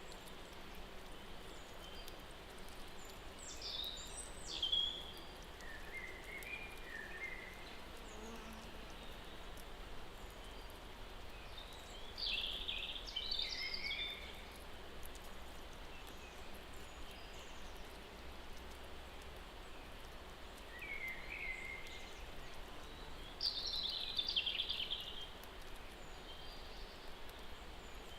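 Small birds calling in short chirping bursts every several seconds over a steady outdoor hiss.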